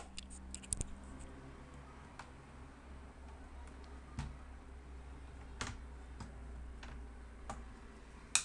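Plastic snap clips of an Acer Aspire 7250G laptop's palm rest clicking loose as the top case is pried off its base, heard as scattered sharp clicks with light plastic handling between them. The sharpest click comes near the end.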